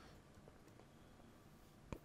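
Near silence: quiet room tone, with one short faint click near the end.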